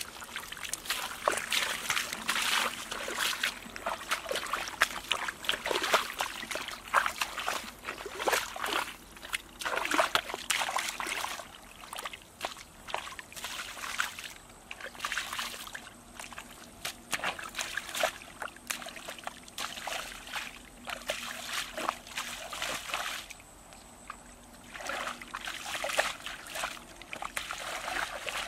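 Bare feet wading through shallow muddy water, an irregular run of splashing, squelching steps that grows softer after about ten seconds.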